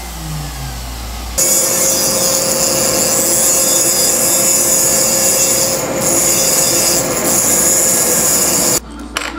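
A rotary power tool grinding into stone. In the first second a tone falls as the tool slows; then, about a second and a half in, a loud steady grinding with a constant whine starts, and it cuts off suddenly near the end.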